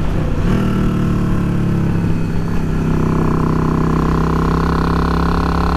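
Yamaha XVS650 (V-Star 650) air-cooled V-twin, fitted with a Dynatek 3000 performance ignition, running under way at a steady engine speed. The note dips briefly about half a second in.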